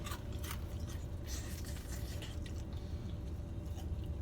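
Soft rustles, clicks and chewing of someone eating fried chicken, over a steady low hum.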